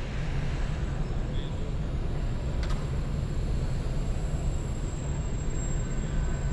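Steady low rumble of a large indoor arena's room noise, with faint distant voices. A thin, faint high whine runs for about two seconds in the middle, from an electric R/C airplane's motor, and a single click comes shortly before it.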